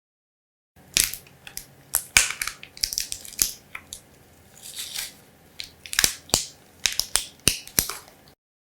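Exaggerated makeup-application sound effects: a dense run of sharp crunches, crackles and clicks with scratchy, hissing swishes between them. They start about a second in and cut off abruptly near the end.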